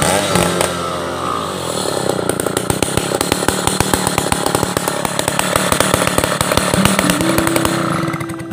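Stihl 070 two-stroke chainsaw running at high revs under load, its bar buried in a large log as it rips lengthwise along the grain.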